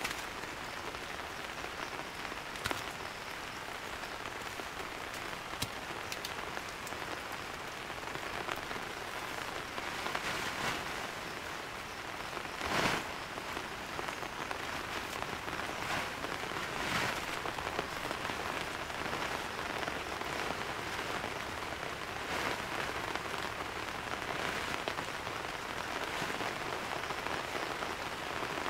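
Heavy rain falling steadily, with a few louder single hits standing out from the hiss, the loudest about 13 seconds in.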